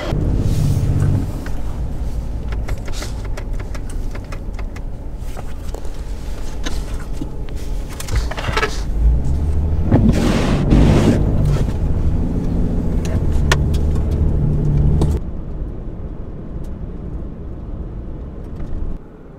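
Vehicle engine and road noise inside the cabin while driving, a steady low rumble with scattered clicks and knocks. About fifteen seconds in, the higher hiss drops away and the rumble goes quieter.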